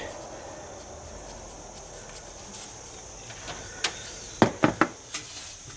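Handling noise as a fuel pressure gauge and its adapter are picked up: a few light clicks, then a cluster of four or five sharp clacks about four seconds in, over a faint steady hiss.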